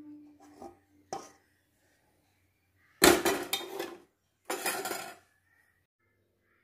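A metal utensil knocking and scraping against a kadai of cooked curry: a few light knocks in the first second, then two louder clattering scrapes, about three and four and a half seconds in.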